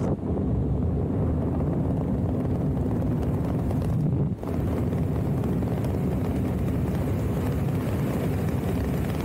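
Wind rushing over the camera microphone during a parachute canopy flight: a steady low rumble that drops briefly about four seconds in.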